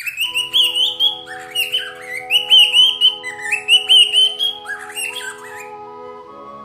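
Birds chirping loudly in quick repeated phrases over soft sustained music chords; the chord shifts near the end.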